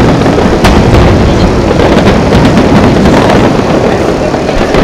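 Aerial fireworks shells bursting in quick succession: a loud, continuous barrage of overlapping bangs and booms.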